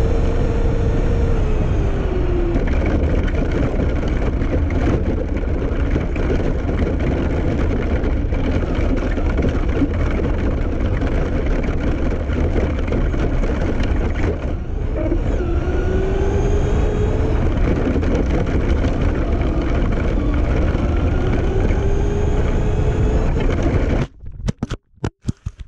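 Onboard sound of a Traxxas Slash 2WD RC truck driving at speed: a loud, steady rumble with the electric motor's whine rising and falling as it speeds up and slows. Near the end the sound breaks into a few choppy bursts and cuts out.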